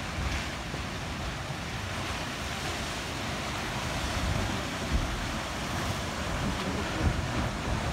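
Ocean surf washing steadily over a rocky shore and tide pools, with gusts of wind rumbling on the microphone.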